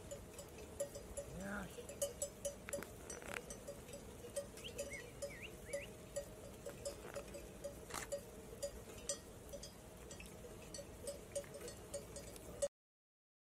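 Bells on a grazing flock of sheep, clinking faintly and irregularly, with a faint sheep bleat about a second and a half in. The sound stops abruptly about a second before the end.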